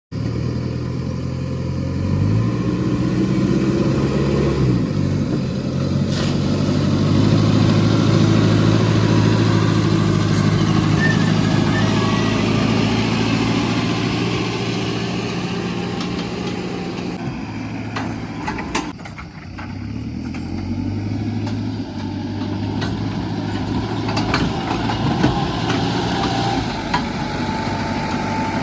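Diesel engine of a backhoe loader running at work, its pitch rising and falling as it is revved, with a few clanks and a brief dip about nineteen seconds in.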